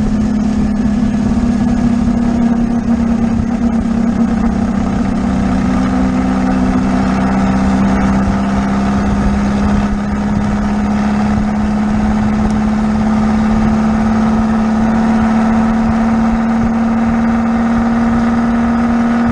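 VW beach buggy's air-cooled flat-four engine droning at steady cruising revs while driving on the road, its note sagging slightly about halfway through and then holding steady.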